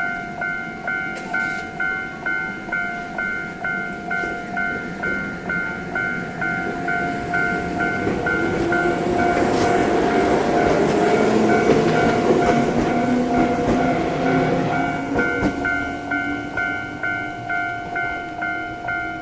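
Japanese level-crossing warning bell sounding its two-tone ding about twice a second throughout, while a two-car Ryutetsu 5000 series electric train runs through the crossing. The train's rumble and wheel noise swell in from about seven seconds in, are loudest around twelve seconds and fade by fifteen.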